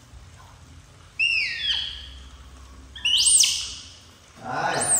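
Baby monkey giving three high-pitched cries: a falling one about a second in, a rising-and-falling one about three seconds in, and another rising-and-falling one near the end.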